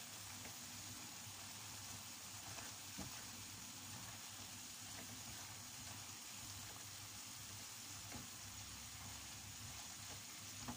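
Chopped cabbage and other vegetables frying in a pan, a steady faint sizzle as they are stirred with a wooden spatula, with a few light knocks of the spatula against the pan.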